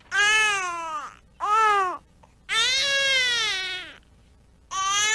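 Newborn baby crying in four drawn-out wails, each rising slightly then falling in pitch, the third the longest. It is the open-mouthed 'ow' cry that signals a tired, sleepy baby.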